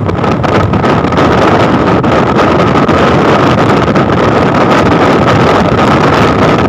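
Storm wind buffeting the microphone aboard a longline fishing boat, a loud steady rush with a steady high whine running through it.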